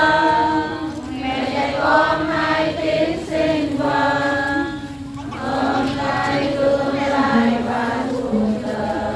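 A choir singing a hymn in sung phrases, with a brief break between phrases about five seconds in.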